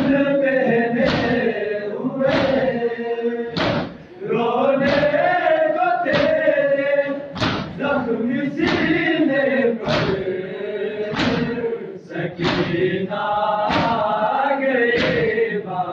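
A large group of men chanting a noha in unison, broken by a loud collective chest-beat (matam) about every 1.2 seconds.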